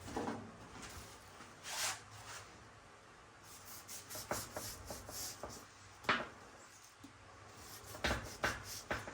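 A knife scraping and cutting at hardened expanding spray foam on a golf cart seat frame: a run of short, irregular scrapes with a few sharper knocks.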